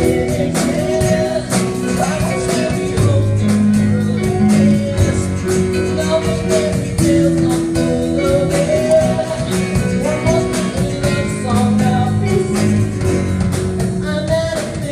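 Acoustic guitar strummed steadily, with a man singing over it into a microphone.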